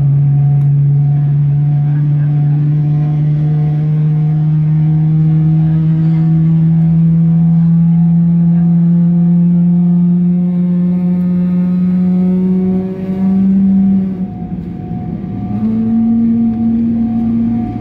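Loud cabin noise of a Boeing 777-300ER accelerating, heard from inside the cabin: a steady pitched drone that rises slowly in pitch for about fourteen seconds. It then breaks off, dips in loudness and settles into a new, slightly higher steady tone.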